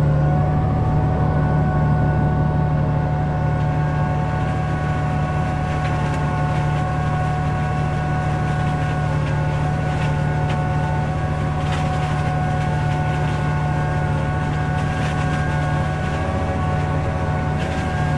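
Case Puma tractor running with its PTO driving a flail hedge cutter: a steady engine hum with a steady whine above it. From about five seconds in come scattered sharp cracks and snapping as the flail head cuts into an overgrown hedge, heard from inside the tractor cab.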